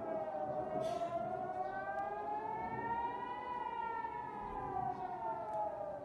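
Civil-defence rocket-warning siren wailing. Its one long tone slowly rises in pitch, then falls away again.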